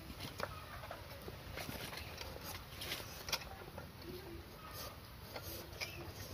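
Knife paring the skin off a whole breadfruit: irregular short scraping and cutting strokes.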